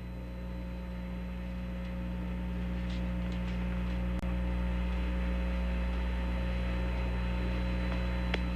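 Steady electrical mains hum with hiss on an open broadcast audio line between air-to-ground transmissions, slowly growing louder.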